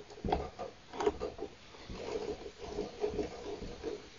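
A string of small clicks and rattles of plastic and metal parts as the wire-feed drive of a MIG welder is handled, its pressure arm and tensioner being closed down over the filler wire.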